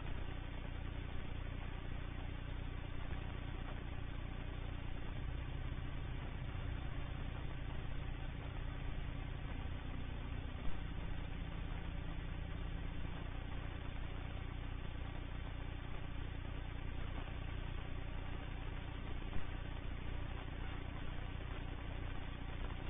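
Van's RV-14 light airplane's piston engine running steadily at low power as the plane rolls out after landing and slows to a taxi, heard through a webcam microphone. A brief click comes about ten seconds in and another near the end.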